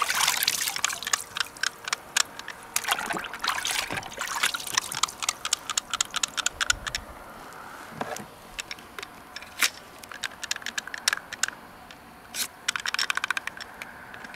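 Water splashing and sloshing in a plastic tub as a Glock 17 pistol is swished through it to rinse off dirt, heavy for the first few seconds. Then scattered small clicks and drips as the wet pistol is lifted out and handled.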